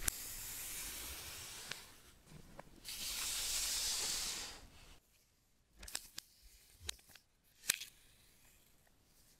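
Protective plastic wrap being peeled off the back of an iPad Pro: a steady rustling hiss, then a second, louder hiss about three seconds in. Then a few light clicks and taps as the cardboard box tray and the plastic power adapter are handled.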